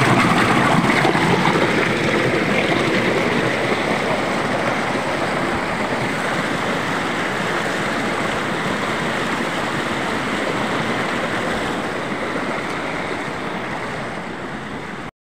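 Rushing stream water cascading over and between boulders at a waterfall, a steady loud rush that cuts off abruptly near the end.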